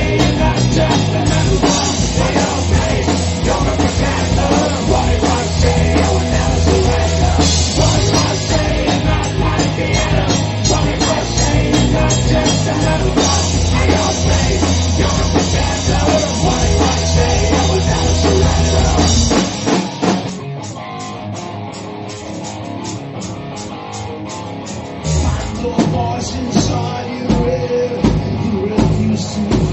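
Rock song played by a full band with drum kit and guitar. About two-thirds of the way through, the bass and heavy drums drop out for a lighter passage, and the band comes back in a few seconds later.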